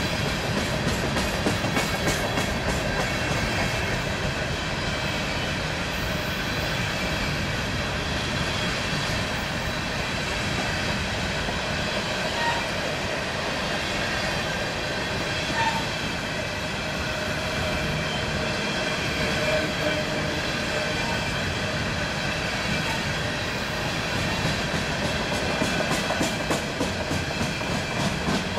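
Empty coal hopper cars of a freight train rolling past, steel wheels clicking over the rail joints, with evenly spaced clicks near the end.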